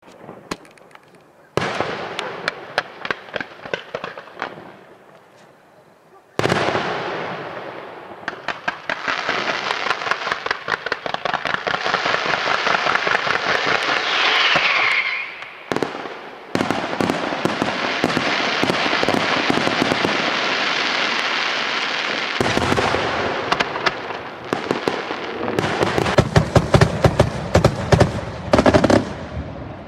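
Fireworks display: dense, rapid crackling and popping from bursting shells and fountains, coming in waves that each start abruptly. Near the end comes a fast volley of louder, sharper bangs.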